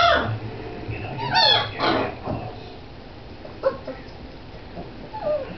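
Young Great Dane puppies whimpering and yelping: a string of short, high-pitched cries that fall in pitch, the loudest at the start and about a second and a half in, with fainter ones later.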